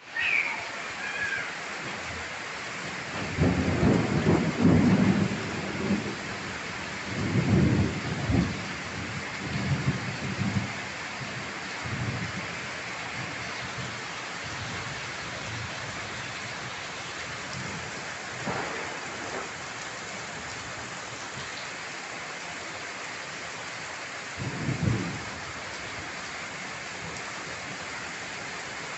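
Heavy rain pouring steadily, with thunder rumbling over it: a long loud roll a few seconds in, more rolls following over the next several seconds, and shorter ones later, including one near the end.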